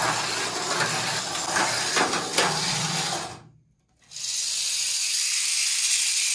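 A front-motor Mini 4WD toy car running around a plastic track: its motor and gears whir while its rollers clatter against the track walls. The sound cuts out about three and a half seconds in. Then comes a steady, high-pitched whir of the motor spinning with the car lifted off the track.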